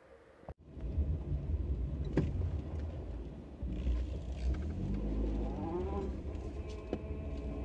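Car engine and road rumble heard from inside the cabin while driving, starting abruptly about half a second in, with a short rising tone partway through.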